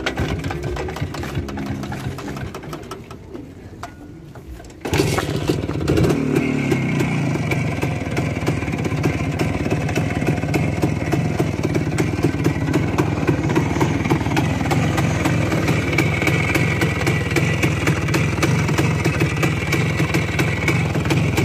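Voskhod-3M motorcycle's single-cylinder two-stroke engine starting suddenly about five seconds in and then running steadily with a fast, even beat. Before it starts, another engine revs and dies away.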